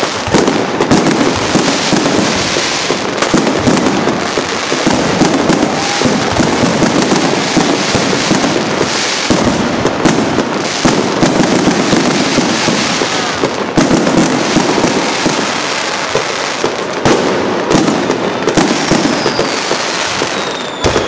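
Fireworks display: many aerial shells and firecrackers bursting and crackling in a dense, continuous run of overlapping bangs, with a falling whistle near the end.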